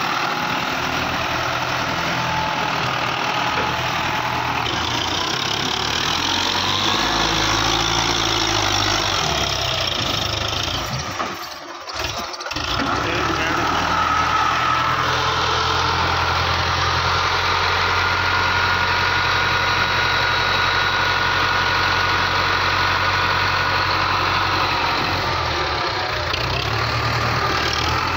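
Belarus tractor's diesel engine running steadily under load as it works a loaded trolley in mud, with a short break about halfway through.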